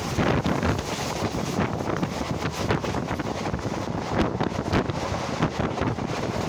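Wind buffeting the microphone held out of a passenger train coach running at speed, mixed with the coach's running noise on the rails. The noise is steady and loud, with irregular gusts.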